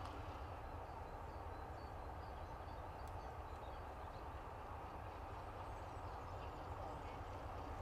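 BR Class 33 diesel locomotive idling at a distance, its Sulzer eight-cylinder engine a steady low rumble, with a few faint bird chirps.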